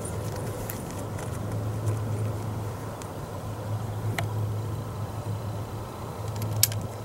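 A few sharp metallic clicks from the percussion lock of an M1842 rifle musket as the hammer is worked and a cap is seated, the loudest near the end, over a steady low hum.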